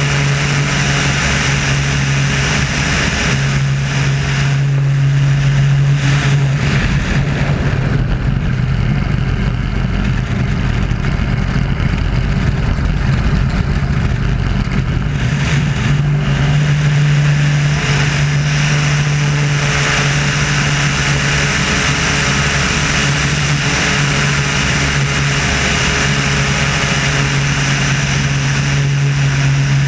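Wolf Pitts Pro aerobatic biplane's piston engine and propeller running at power, heard from a camera mounted outside the aircraft, with wind rushing over the microphone. The steady drone turns rougher and more wind-dominated for several seconds in the middle, then settles back to a steady drone.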